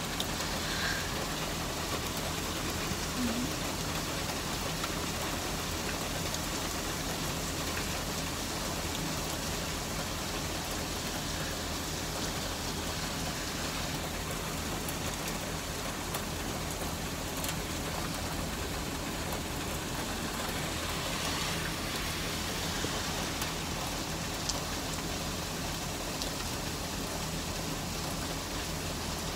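Heavy rain falling steadily, an even hiss with occasional faint ticks.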